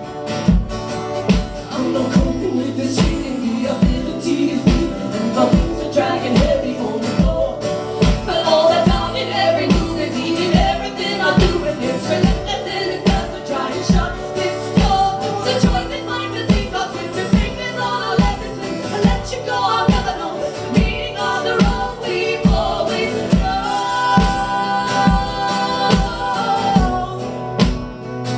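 A live band performs a song: voices singing over a steady beat of about two strikes a second.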